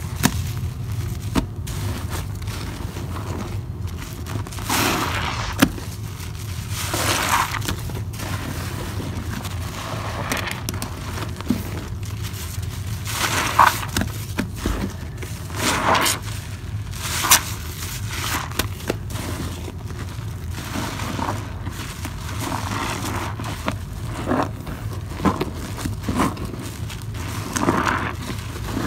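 A soap-soaked sponge squeezed and wrung by hand over a basin of suds, giving irregular wet squelches, squishes and gushes of soapy water, over a steady low hum.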